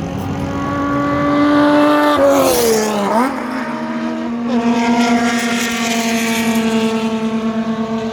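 TC Zonal race car engine at full throttle passing by, its note dropping sharply in pitch as it goes past about three seconds in. Another race car's engine follows with a steady, slightly pulsing note.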